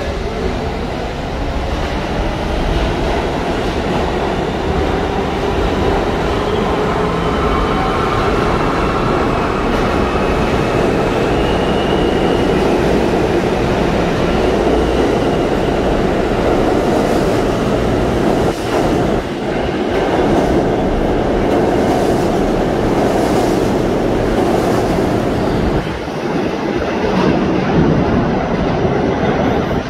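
Alstom-built R160 subway train accelerating out of an underground station: its traction motors whine, rising in pitch over the first dozen seconds, over a steady rumble of steel wheels on rail. In the second half, sharp clacks of wheels crossing rail joints as the cars run past.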